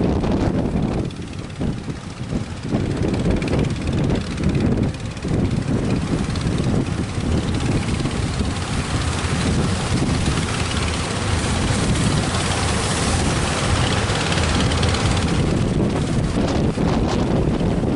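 Strong wind buffeting the microphone over the roar of surf, swelling to a brighter hiss through the middle.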